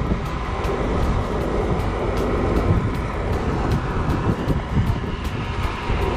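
Steady low rumble of wind buffeting the microphone, with faint light ticks recurring a few times a second.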